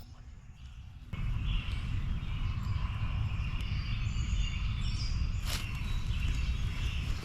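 Woodland field recording: a steady low rumble on the microphone with faint bird chirping over it, and one sharp click about five and a half seconds in.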